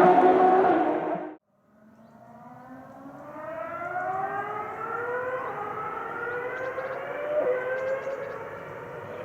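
A racing car engine at high revs, loud, stopping abruptly about a second and a half in. Then a distant racing engine accelerates, its pitch climbing slowly and steadily with a couple of small steps as it shifts up through the gears.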